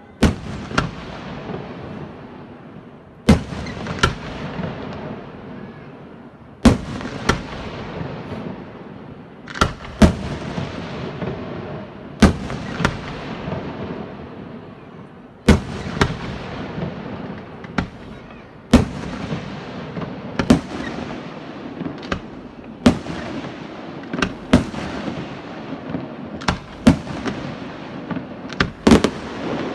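Fireworks display: loud, sharp bangs of bursting fireworks every second or two, often in quick pairs, with continuous crackling between the bangs.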